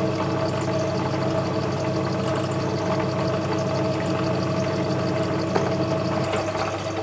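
Myford Super 7 lathe running at a steady speed with its chuck spinning: a constant motor and gear hum with several steady tones.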